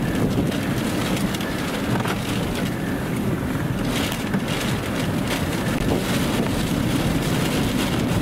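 Strong wind buffeting the microphone: a steady, dense low noise.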